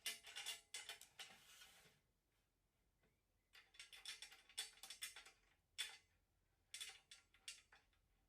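Faint, scattered light clicks and knocks, with a silent stretch about two seconds in.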